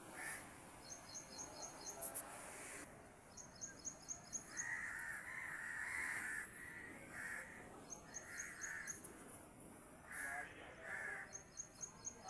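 Crows cawing faintly in short series of calls. Runs of about five quick, high chirps repeat every few seconds.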